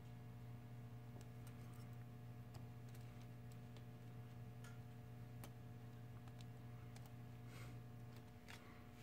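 Faint, irregular small clicks and taps of tools and small parts being handled during phone reassembly, over a steady low hum that drops away about eight seconds in.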